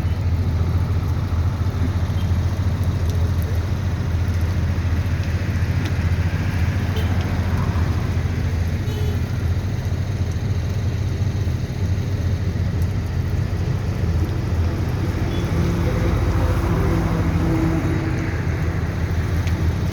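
Heavy diesel engine running steadily with a deep, even drone.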